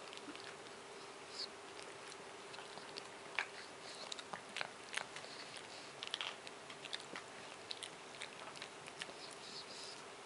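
A Japanese Chin gnawing and licking a chew bone: irregular wet clicks, snaps and crunches of teeth on the bone, thicker in the middle stretch. A steady faint hum lies underneath.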